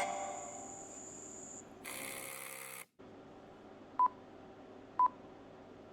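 A short burst of hiss and a brief dropout, then three short electronic beeps at one steady pitch, about a second apart.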